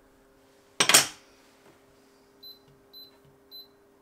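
A short, loud burst of noise about a second in, then three short high beeps about half a second apart as the cooktop's controls are set to medium heat, over a faint steady hum.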